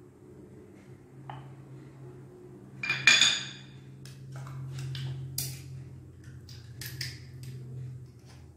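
Cutlery and dishes being handled: one loud ringing clink about three seconds in, followed by several lighter clicks and taps, over a faint low hum.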